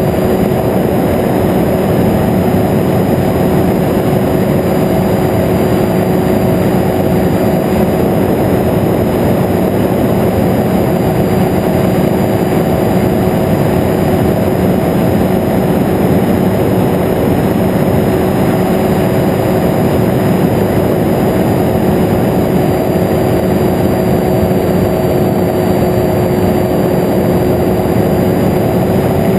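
Flex-wing microlight trike's engine and pusher propeller running at a steady cruise in flight, a constant drone with a rush of wind over the open cockpit.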